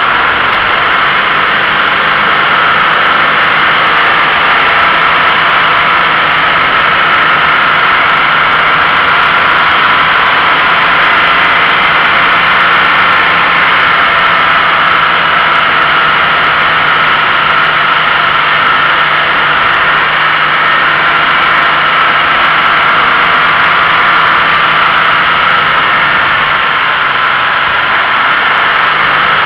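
Toyota GT86 driving along at a steady pace, heard through a low exterior-mounted camera: a loud, steady rush of tyre and wind noise with the flat-four engine's even hum underneath.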